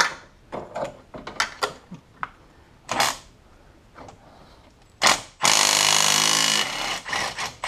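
A handheld cordless power tool spins a bolt on the 5.7 Hemi's cylinder head for about a second, its motor running steadily, about two-thirds of the way in. Before it come several light metallic clicks and clinks of tools and parts being handled.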